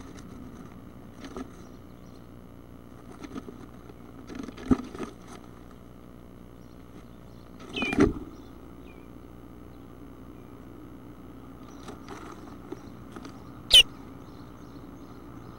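Fledging-age bluebird nestlings in a nest box: scattered knocks and scrabbling as they move, and two short, loud chirps, one about halfway through and one near the end, over a steady low hum.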